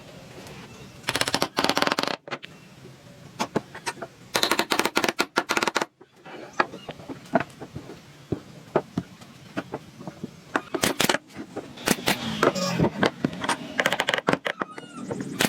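Woodworking sounds: irregular sharp clicks and knocks of wood being worked, with two bursts of rapid rattling clicks, one about a second in and one about four seconds in.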